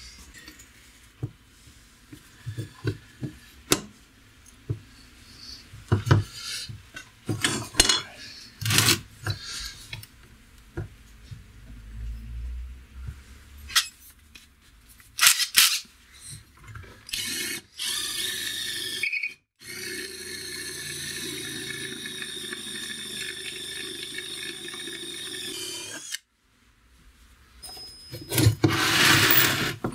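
Metal parts clinking and knocking on a workbench as a bracket is fitted, then an electric drill running steadily for several seconds before stopping abruptly. A short burst of scraping noise comes near the end.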